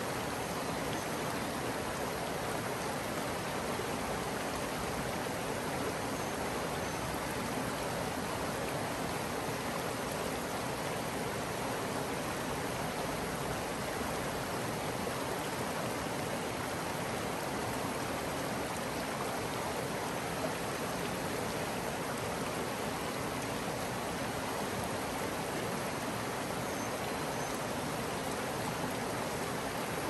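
Shallow creek water running steadily, an even rushing with no breaks.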